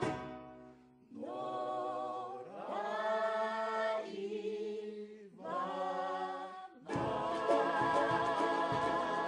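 Polynesian vocal group singing four long, held chords in harmony without accompaniment. About seven seconds in, the full band comes back in with strummed strings and a drum.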